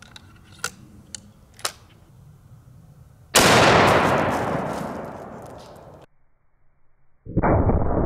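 A few faint clicks as the double-barrel 500 Nitro Express rifle is loaded and closed, then, a little over three seconds in, a single loud shot from it, its echo dying away for a couple of seconds before cutting off. About a second later a muffled, steady rumble starts.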